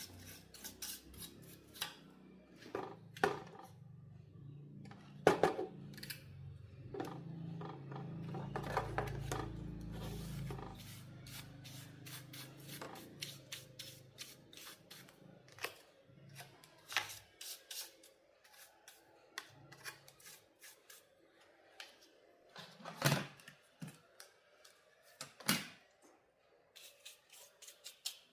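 Handwork noises from a television repair: many sharp clicks, snips and rubbing. A low hum runs under them for about the first twelve seconds.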